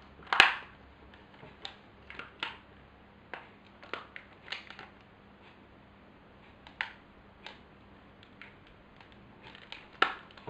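Scattered small clicks and taps of a Nikon SB800 flashgun's plastic housing being handled, its freshly fitted covers held together in the hands. The loudest click comes about half a second in, with another near the end.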